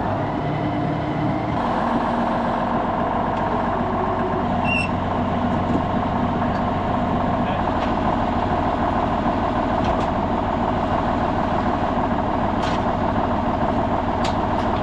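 Tractor engine running steadily under load. It picks up slightly about a second and a half in, while it works the dump trailer to tip feed to the back. A few faint clicks sound near the end.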